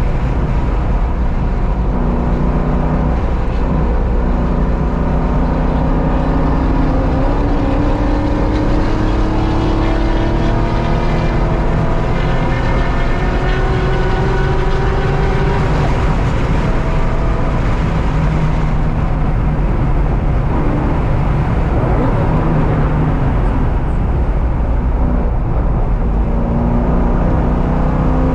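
Car engine being driven hard on a race track, its pitch climbing repeatedly under acceleration and dropping back at each gear change, over steady road and tyre noise.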